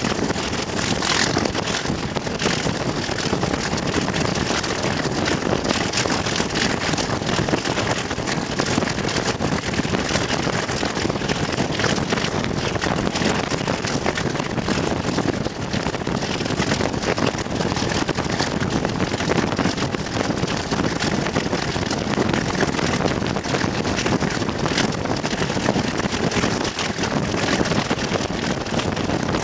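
English Electric Class 37 diesel locomotive, with its V12 12CSVT engine, running steadily under power at line speed. It is heard from just behind the loco, mixed with rushing air and rail noise.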